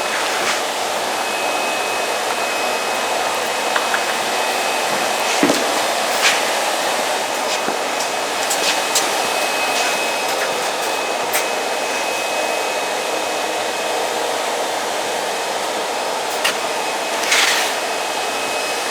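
Steady rushing of air-moving workshop machinery, with a faint steady high whine and scattered clicks and knocks. A brief louder rush comes near the end.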